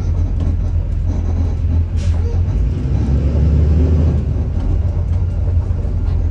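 Blue Bird All American school bus running: a steady low engine and road rumble with light rattling clicks, and a short hiss about two seconds in.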